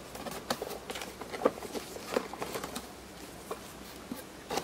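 Cardboard box flaps being opened and paper leaflets handled: a scatter of light taps, crinkles and rustles that thins out about halfway through and picks up again near the end.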